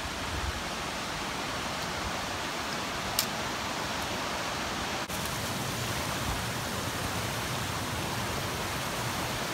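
Steady rushing of a mountain creek, with a single sharp click about three seconds in.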